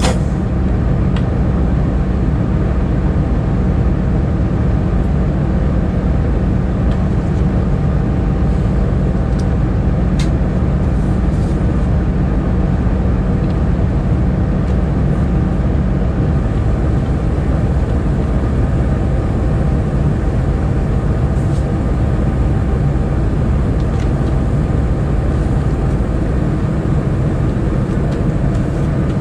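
Diesel-electric freight locomotive engine idling while the train stands still, a steady low hum heard close up from the locomotive's roof. Part of the engine note changes a little over halfway through.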